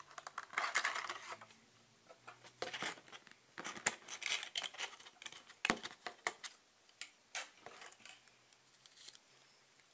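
Clear plastic display case of an N gauge model wagon being handled and prised open: irregular crinkles, clicks and taps of thin plastic. The busiest bursts come about a second in and around four seconds in.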